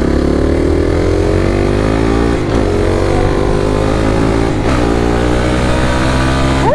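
Sport quad's engine under way, rising in pitch as it accelerates, with two upshifts about two and a half and four and a half seconds in, then holding steady before a quick rev near the end.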